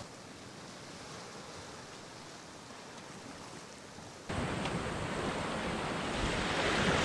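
Sea surf washing against a rocky shore, a steady rushing noise that is faint at first and then jumps suddenly much louder about four seconds in.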